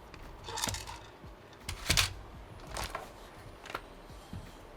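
Sparse light clicks and taps, about one a second, of small metal tools handled on a graphics card's circuit board during desoldering work.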